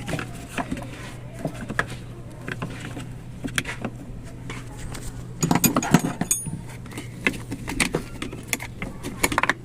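Metal tools and hardware clinking and knocking in irregular bursts over a steady low hum. The loudest cluster of knocks comes about five and a half seconds in.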